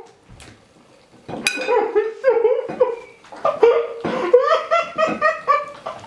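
Hearty laughter in quick repeated pulses, starting about a second in and going on almost to the end.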